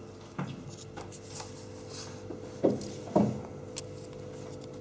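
Handling noise from a camera being moved about and set down, with rustling, light clicks and two dull knocks about two and a half and three seconds in. A faint steady hum runs underneath.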